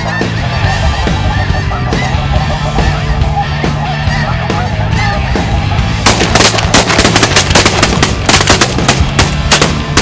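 A large flock of snow geese calling continuously, over rock music with a steady bass line. About six seconds in, a rapid, dense volley of shotgun fire breaks out and keeps going.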